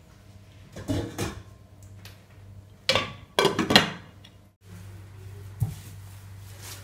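Glass pot lid with a steel rim being handled and set onto a nonstick cooking pot: a few clinks and scrapes in the first four seconds, then a light click. A steady low hum runs underneath.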